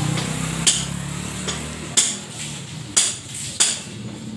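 Four sharp metal knocks and clanks, unevenly spaced, from tools and parts on a stripped-down Yamaha Mio M3 scooter engine. A low hum fades out about two seconds in.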